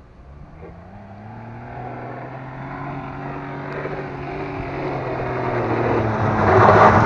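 A car's engine running hard at a nearly steady pitch in low gear as the car climbs toward the microphone, growing steadily louder throughout. A rushing noise, such as spinning tyres on dirt, rises near the end.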